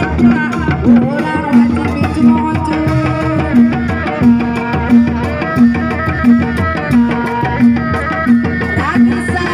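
Sundanese traditional music played live: pitched drum strokes keep a steady beat of about one and a half a second, under a wavering, sliding melody line, with a rising slide near the end.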